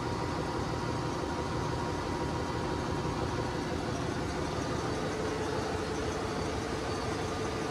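Steady drone of running machinery in a ship's engine room, with a faint steady whine that changes pitch about two-thirds of the way through.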